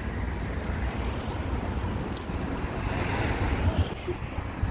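Wind buffeting the microphone outdoors: an uneven, gusting rumble.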